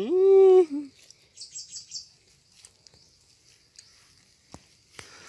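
A man's voice holds a sung "đinh" tone for the first second. About a second and a half in, a bird gives a quick run of five or six high chirps, followed by a few faint clicks.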